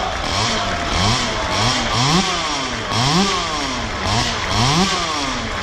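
Vehicle engine revved again and again in short blips, its pitch climbing and dropping roughly once or twice a second.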